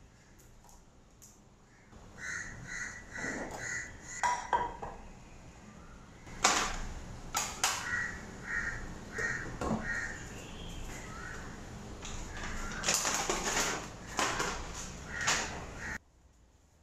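A crow cawing in runs of short, quickly repeated calls, mixed with clinks and knocks of a saucepan and its glass lid being handled on a countertop.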